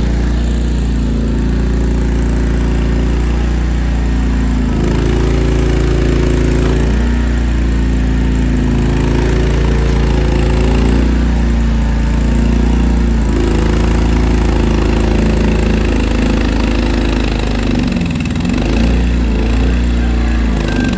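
Small engine of a mini skid steer running steadily, its note shifting a few times as it works.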